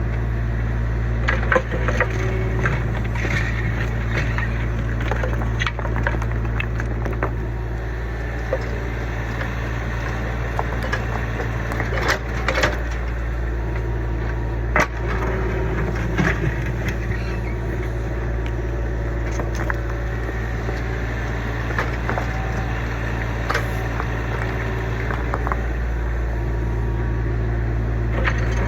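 Kubota U25 mini excavator's diesel engine running steadily under work, with scattered cracks, crunches and scrapes as the bucket digs through old wood and debris.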